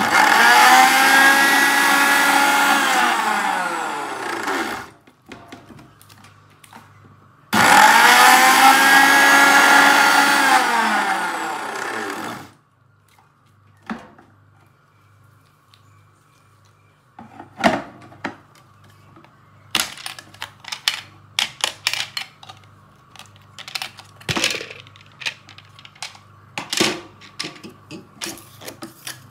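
Electric blender grinding dry biscuits to powder in a steel jar, in two runs of about five seconds each. The motor starts suddenly and its pitch drops as it winds down after each run. After a pause come a series of sharp clicks and knocks as the jar is handled and taken off the base.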